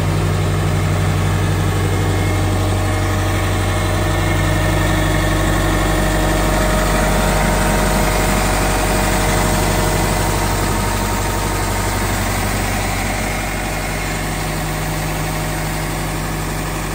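Diesel engine of a towable 420 cfm road compressor running steadily at idle, a constant low hum. It drops slightly in level about three-quarters of the way through.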